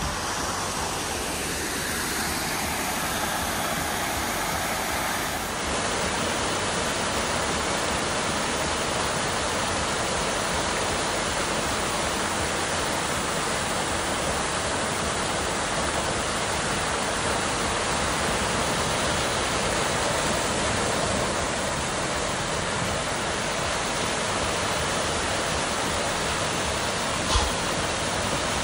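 Water rushing over a small rocky creek cascade, a steady even rush, with one short knock near the end.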